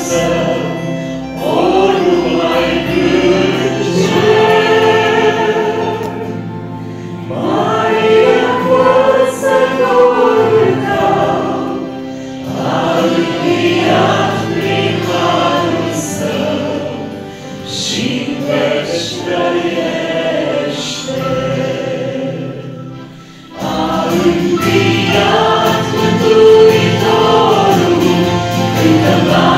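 Small church worship group of men's and women's voices singing a Romanian Easter hymn together, with acoustic guitar accompaniment. The singing dips briefly about three-quarters through, then the next section comes in at full strength.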